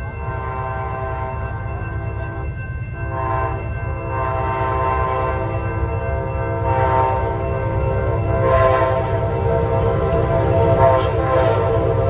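Horn of an approaching Amtrak passenger train's locomotive, sounding in a series of long blasts that grow louder as the train nears, over the train's low rumble.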